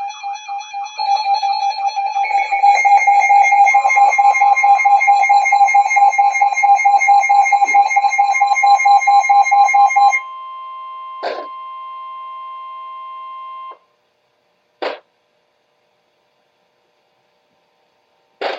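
Emergency Alert System alert tones: a loud, steady electronic alarm of several held tones with a rapid flutter. About ten seconds in it drops to a quieter held tone, which cuts off suddenly a few seconds later. After that come three short sharp clicks.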